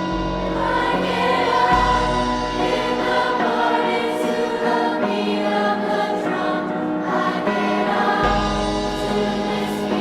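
A song with choir-like singing over sustained chords and deep bass notes.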